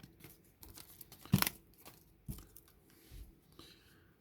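Foil wrapper of a Magic: The Gathering collector booster pack being torn open by hand, crinkling, with one sharp loud rip about a second and a half in.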